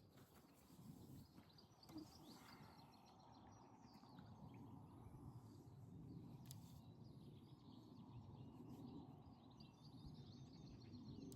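Near silence: faint outdoor ambience with a low background rumble and distant birds chirping now and then.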